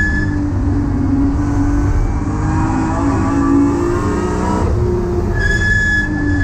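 BMW E30's swapped-in S54 3.2-litre straight-six, heard from inside the cabin, pulling under load with its pitch rising steadily for about four and a half seconds, then breaking off and dropping. A thin steady high whine comes in near the end.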